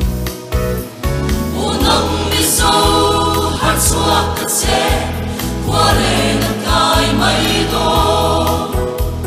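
Mixed four-part choir of sopranos, altos, tenors and basses singing a Mizo choral song in harmony. The sound dips briefly about a second in, then the full choir swells back in.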